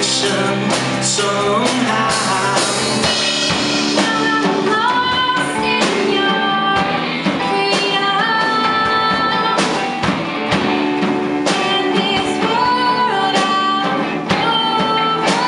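Live worship band playing an instrumental passage in a rock style: a drum kit keeping a steady beat, with guitar and held melody notes over it.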